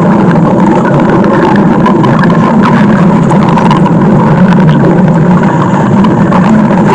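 Loud stomach growl, one continuous low growling with no breaks.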